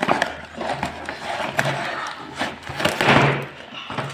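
Toy blaster packaging being wrestled open by hand: irregular rustling and crinkling with sharp clicks and knocks, loudest about three seconds in.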